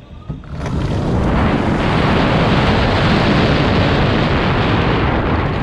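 Loud wind buffeting on the onboard camera microphone of an electric go-kart accelerating hard. It builds about a second in and eases off near the end.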